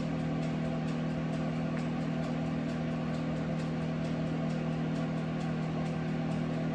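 A steady low mechanical hum from a running household appliance, unchanging throughout.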